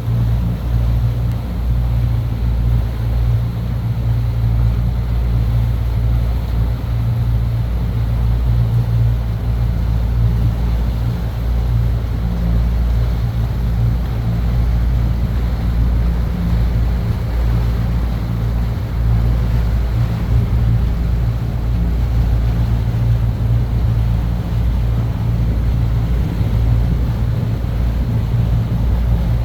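A large boat's engine running with a steady, unchanging low drone.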